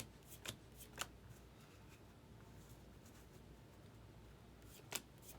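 Baseball trading cards being flipped through one at a time from a handful: a few short, crisp card snaps in the first second, a quiet stretch, then another snap near the end.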